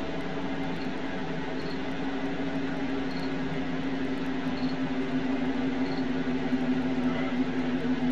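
Steady low hum from a parked police patrol car, one even tone with overtones, with faint short high chirps repeating every second or so.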